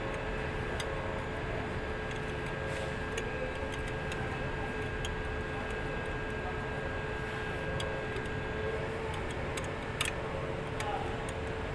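Sparse, light metal clicks of a wrench tightening the hydraulic line fitting on a forklift clutch cylinder, with one sharper click about ten seconds in, over a steady faint hum.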